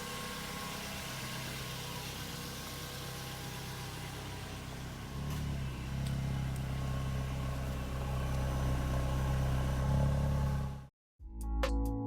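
A 2008 Mazda 3's four-cylinder engine idling steadily. It gets louder about five seconds in, then cuts off abruptly near the end, where electronic music begins.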